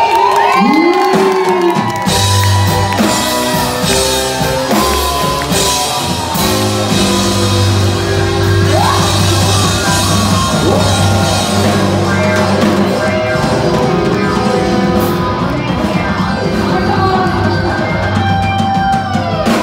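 A man and a woman singing through microphones over a rock-style backing track with drums and bass; the backing comes in about two seconds in.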